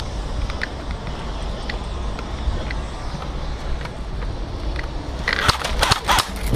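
Airsoft guns firing a quick run of sharp cracks about five seconds in, over a steady low rumble with scattered faint clicks.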